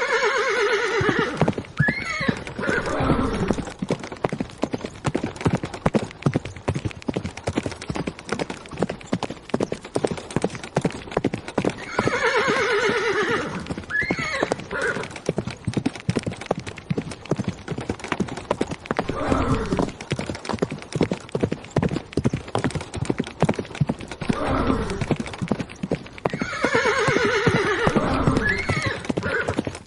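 Horses galloping, a fast, continuous clatter of hoofbeats. A horse whinnies three times over it: at the start, about twelve seconds in, and near the end.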